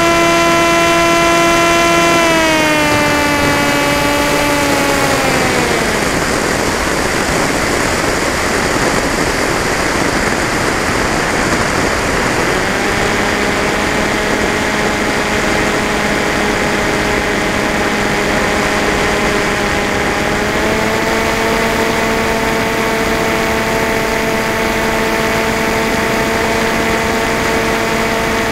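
Electric motor and propeller of an FPV model aircraft, heard from the onboard camera, whining with a steady pitch. It steps down and glides away a few seconds in, leaving only wind rush over the airframe as the throttle is cut. It climbs back in a little before halfway and steps up once more later on.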